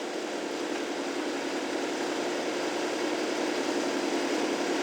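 Tree-removal power equipment running steadily at speed: a constant mechanical drone with a steady hum, slowly growing louder.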